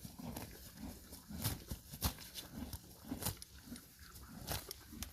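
Friesian horse eating, chewing steadily about two or three times a second, with sharper crunching crackles mixed in.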